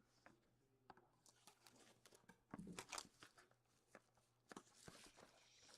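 Faint crinkling and tearing of plastic wrapping as a box of hockey cards is opened, with scattered light clicks and rustles.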